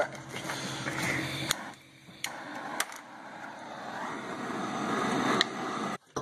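Handheld gas blowtorch burning: a steady hiss of the flame that grows louder over the last three seconds, after a couple of sharp clicks. A low steady hum stops about a second and a half in.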